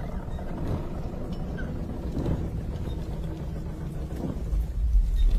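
Low steady rumble with a few faint knocks, swelling to a loud deep rumble near the end.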